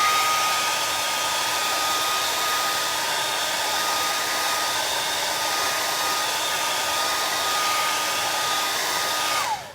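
Hair dryer blowing to dry wet paint. Its whine rises as it switches on, the motor and airflow run steadily, and then it winds down and cuts off near the end.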